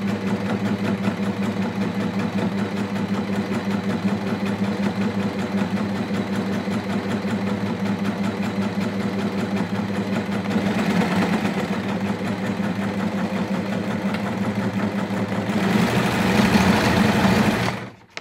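Brother M343D overlocker running at speed, sewing a test seam through fabric on freshly set-up threading. The steady motor hum with its rapid stitching rhythm gets a little louder about ten seconds in and again near the end, then stops suddenly.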